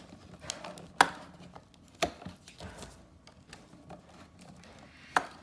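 Hand-held paper crimper clicking shut on the edges of a paper candy wrapper: four sharp clicks, the loudest about a second in, with lighter ticks between.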